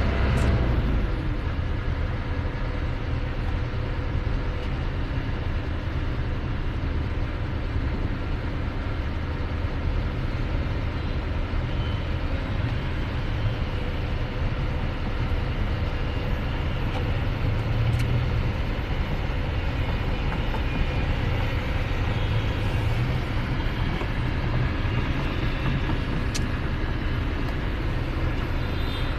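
Heavy machinery engine running steadily with a low rumble, its level hardly changing.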